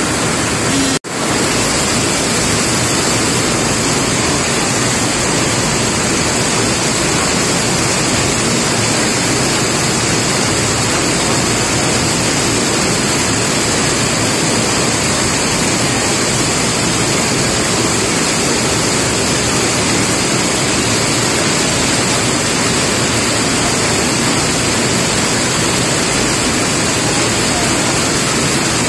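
Steady, heavy rainfall: a dense, even hiss. It cuts out for a split second about a second in.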